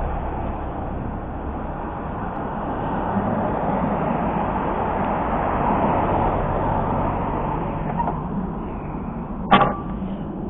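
Honda Dream CL250 parallel-twin motorcycle engine idling steadily, with one sharp click near the end.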